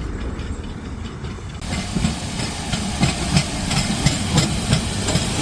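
Jacobite steam train running: a low rumble, then about a second and a half in a loud hiss comes in sharply, with a regular beat about three times a second.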